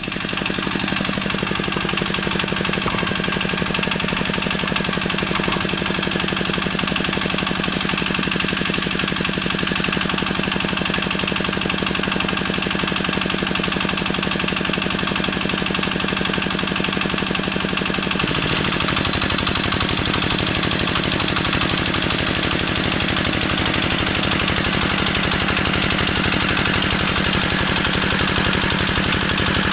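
Heavy walk-behind tractor's engine running steadily with an even firing beat. About two-thirds of the way through its note changes as the rotary tiller begins milling the soil.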